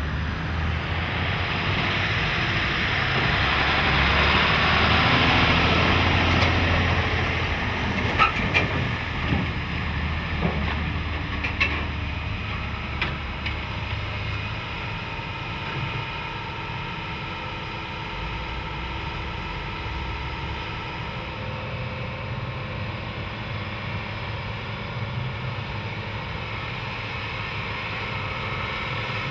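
Heavy diesel construction machinery running: a Caterpillar wheel loader and Komatsu excavators. The sound swells loudest for the first several seconds, then there are a few sharp metal knocks, then a steadier engine drone with faint whining tones.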